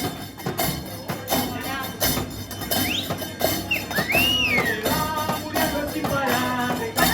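Murga percussion (bass drum, snare and clashing cymbals) playing a steady carnival beat, with a high sliding call rising and falling over it about four seconds in.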